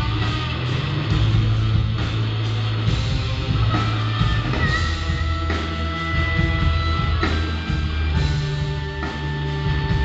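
Live blues-rock band playing, with electric guitars, bass guitar and drum kit, with a few long held high lead notes partway through. It is heard through the room.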